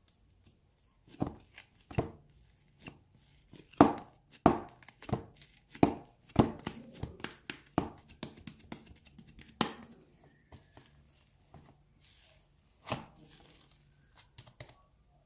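Irregular knocks, taps and rustles of objects being handled, some clicks loud and sharp, in an uneven run with short pauses.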